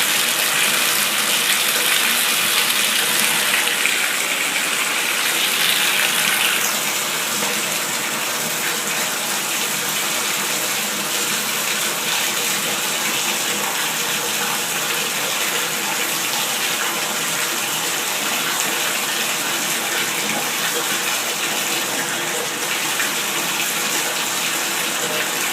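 Bathtub tap running, water pouring steadily into a slow-draining tub. The splashing is a little softer after about seven seconds.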